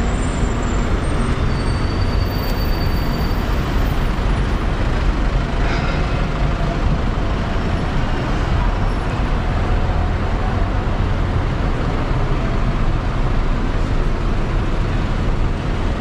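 Steady road traffic on a busy city street: a continuous low rumble of cars, taxis and vans passing.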